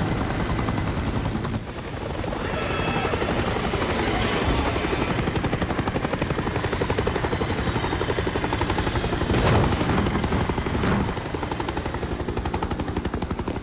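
Helicopter rotors chopping steadily with engine whine as helicopters hover low and set down on a helipad. There is an abrupt cut in the sound a little under two seconds in.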